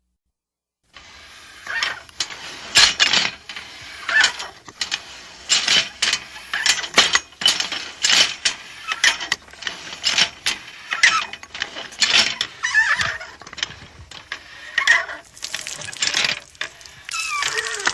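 Sound-effect samples played from an electronic keyboard: after about a second of silence, an irregular run of sharp mechanical clicks and clatters with hiss between them, and a short squeaky glide near the end.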